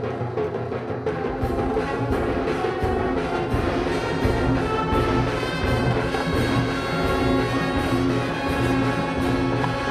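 Marching band music: brass playing held chords over steady drum strikes, growing fuller about a second in.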